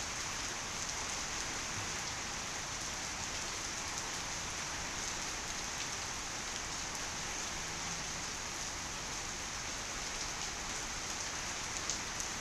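Heavy rain falling steadily, a dense even hiss of drops with faint scattered ticks.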